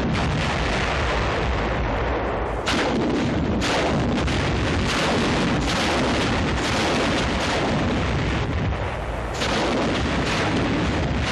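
Demolition rockets exploding on beach obstacles: a continuous rumble of blasts, with sharp new detonations about three seconds in, a second later, and again near the end.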